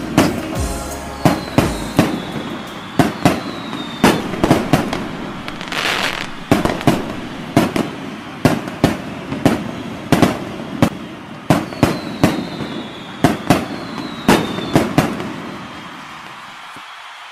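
Fireworks going off in a rapid string of sharp bangs, about two a second, with a high falling whistle twice. The bangs stop shortly before the end.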